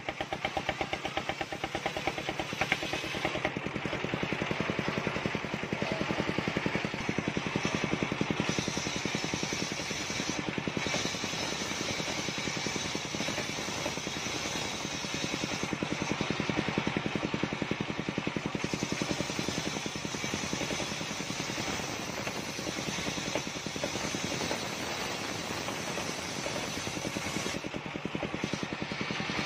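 Large table-mounted circular saw ripping a long wooden beam lengthwise, the blade cutting steadily through the wood over the steady drone of the machine driving it, with no pause in the cut.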